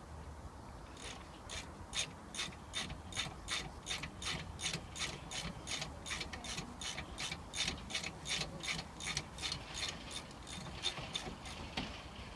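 Hand socket ratchet clicking steadily, about three to four clicks a second, as the 13 mm brake caliper bolts are wound in.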